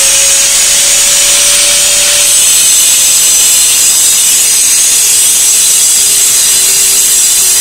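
Electric angle grinder running at full speed: a steady high motor whine over a loud hiss. The whine sags slightly lower about halfway through.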